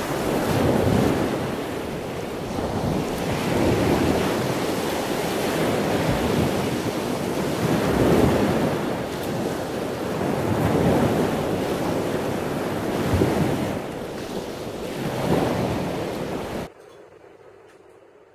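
Sea waves washing in, the surf swelling and falling back every few seconds. It cuts off abruptly near the end, leaving a faint tail that fades away.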